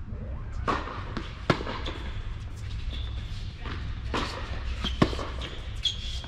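Doubles tennis rally on an indoor hard court: several sharp pops of racquets striking the ball and the ball bouncing, echoing in the hall, with short high squeaks of sneakers on the court surface.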